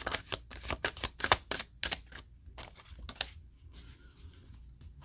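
A tarot deck being shuffled by hand, the cards giving quick, irregular clicks and snaps that thin out after about two seconds.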